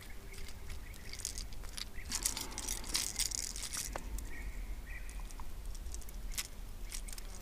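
A freshly caught small pike being handled: scattered light taps and clicks, with a brief rustling flurry about two to four seconds in.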